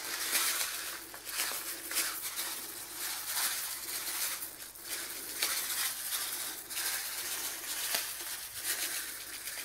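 Sesame seeds being sprinkled from a packet onto wet pie batter in a metal baking tray: a soft, continuous patter.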